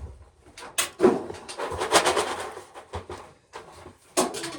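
Dry corn husks rustling and tearing as an ear of corn is husked by hand, with a sharp snap about a second in and another near the end.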